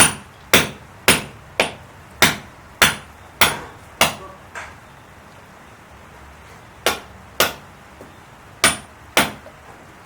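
Hammer blows on a building site, about two strikes a second: a run of eight or nine, a break of about two seconds, then two quick pairs.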